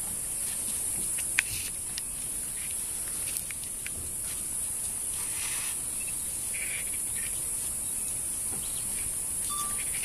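Steady high-pitched insect drone from the surrounding bush, with a few faint clicks and one sharp click about a second and a half in.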